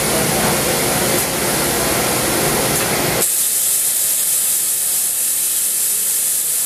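Makino V22 vertical machining center running inside its enclosure: a steady, loud hiss of air or coolant spray with machine hum. About three seconds in the low part drops away suddenly, leaving a high, thin hiss.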